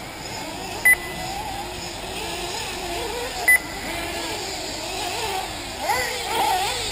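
Several 1/8-scale nitro buggy engines buzzing around the track, their pitch rising and falling as the drivers work the throttle. Two short, loud electronic beeps cut through, about a second in and again about three and a half seconds in.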